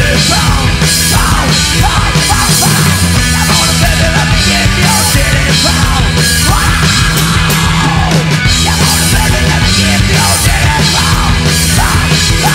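A garage-psychobilly rock band playing loud and fast, live in the studio: a drum kit and electric guitars, with a singer shouting the vocal into a microphone.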